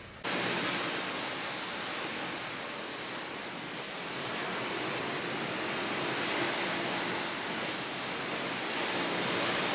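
Steady rushing noise, even and unbroken, starting abruptly just after the start.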